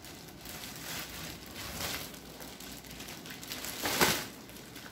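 Clear plastic packaging crinkling and a cardboard box rustling as baby-walker parts are handled, with a louder crinkle about four seconds in.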